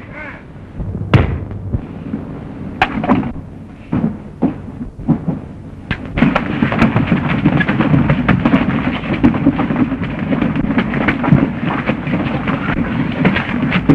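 A brawl among a ship's crew: a few separate sharp blows at first, then from about six seconds in a dense, continuous scuffle of many blows and thuds.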